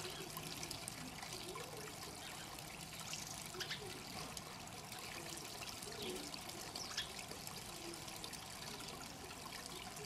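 Water trickling and splashing steadily down a small stone stream cascade into a garden pond.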